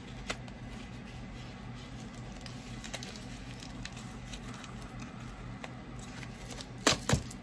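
Light handling of a cardboard box of incense sticks: faint scattered taps and rustles over a steady low hum, then two sharp clicks close together near the end.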